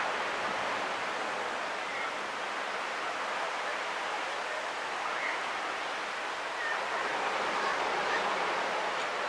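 Steady rush of ocean surf breaking along a sandy beach, heard from high above, swelling slightly about two-thirds of the way through.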